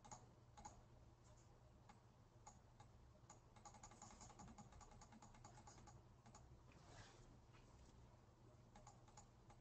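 Faint, scattered clicks of typing on a computer keyboard, with a denser run of keystrokes in the middle and near silence between them.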